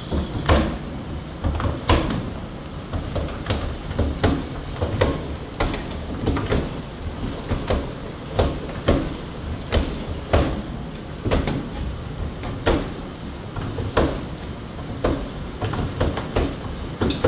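Stainless-steel column still running: boiling wash surging and splashing across the plates behind the sight glasses, with irregular knocks about once a second over a steady rushing noise.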